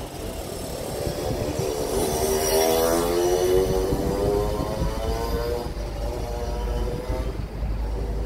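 A motor vehicle's engine hum rises in pitch over the first three seconds or so, then slowly falls, over steady low road rumble.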